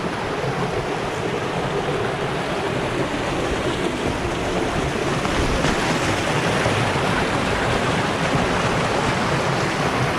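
Steady rush of a waterfall's falling water, an even noise with no breaks.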